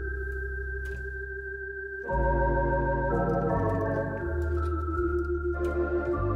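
Lowrey Sensation electronic home organ playing its preset-six organ voice: sustained chords over held bass notes. About two seconds in the sound gets fuller and louder, and the chords take on a wavering vibrato.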